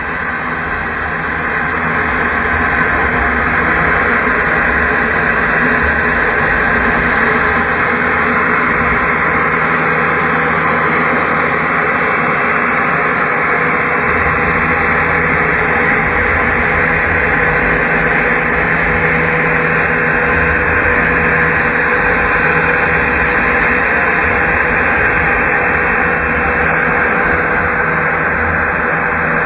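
CNC router spindle carving a relief into a wooden panel: a steady whine from the spindle over the rough hiss of the bit cutting wood. It swells in over the first couple of seconds and then holds steady.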